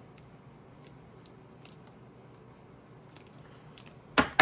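Faint scattered ticks from trading cards being handled. Near the end a fast run of loud, sharp clicks begins, about five a second.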